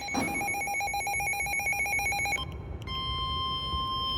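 Emergency alert tones. A fast-trilling, ringing electronic tone runs for about two and a half seconds and stops. After a short pause, a steady single-pitch alert tone starts, signalling a tornado warning.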